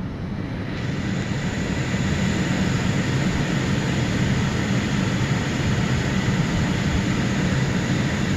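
Steady rushing noise with a low hum from a switched-on 2006 BMW 5 Series, growing louder about a second in and then holding steady.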